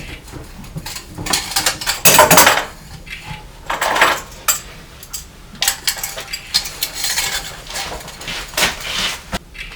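Metal tools and parts clinking and clattering against each other as they are handled during work on a truck engine, in irregular bursts; the loudest clatter comes about two seconds in.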